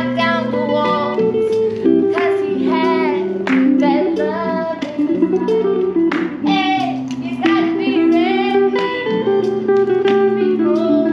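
Guitar playing a steady run of held notes while a voice sings a wavering, wordless melody over it.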